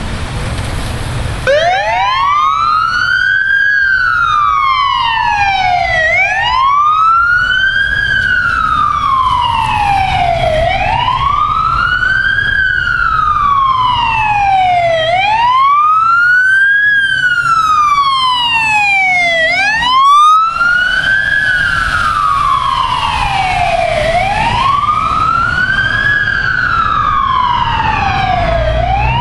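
Siren on a fire-department pickup truck sounding a wail, its pitch rising and falling slowly about every four and a half seconds, starting about a second and a half in. A brief thump about twenty seconds in.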